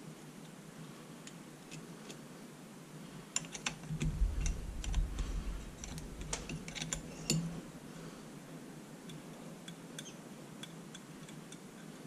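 Metal clicks and clinks of a combination wrench working the housing bolts of a Sanden 709 A/C compressor, with a cluster of sharp clicks and a low handling rumble in the middle, then fainter scattered ticks near the end.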